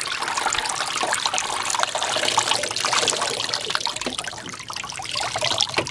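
A steady stream of water wrung from wet clothes by a laundry wringer, pouring off its tray and splashing into a tub of water. There is a lot of water.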